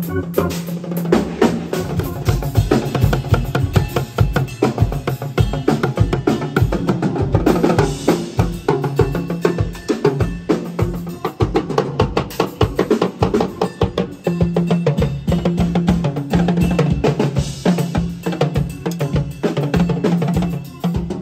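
A drum kit playing a busy groove of kick, snare and cymbals, with timbales struck alongside, over a steady low sustained note.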